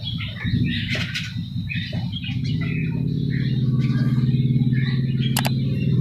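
Scattered short chirps of a sooty-headed bulbul over a steady low engine hum that slowly grows louder. A pair of sharp clicks a little over five seconds in.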